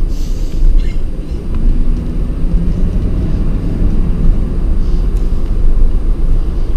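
Car driving slowly, a steady low rumble of engine and tyres on the road heard from inside the cabin.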